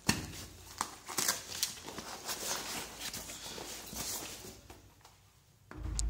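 Rustling of backpack fabric and soft knocks as a laptop is slid in and out of the bag's padded laptop compartment, ending in a low rumble of handling.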